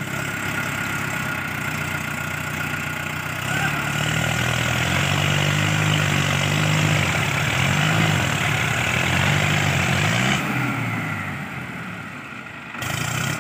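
Diesel tractor engine bogged in deep mud, revving up and down over and over for several seconds, then easing back toward idle near the end.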